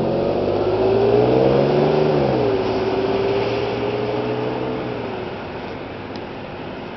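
Engine of a passing motor vehicle accelerating, its pitch climbing for about two seconds, then dropping sharply and holding steady as it fades away.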